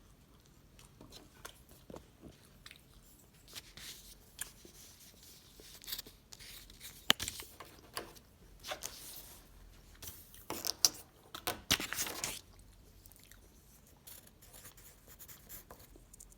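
A person chewing and biting edible imitation tissue paper: soft mouth sounds and crackles, with a sharp click about seven seconds in and a louder stretch of crinkly crunching from about ten to twelve seconds in.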